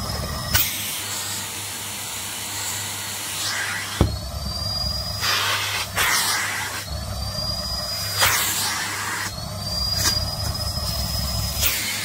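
Canister vacuum cleaner running with its hose nozzle worked over a nylon puffer jacket. The suction note changes every couple of seconds as the nozzle presses into and lifts off the fabric, with a thin rising whistle now and then. A sharp knock comes about four seconds in.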